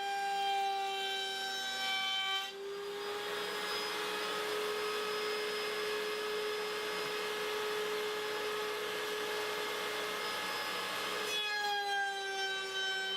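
A woodworking power saw runs with a steady high whine. About two and a half seconds in, it starts cutting through a board and a rasping hiss covers the whine for some nine seconds. Near the end the blade runs free again and its whine settles back a little lower.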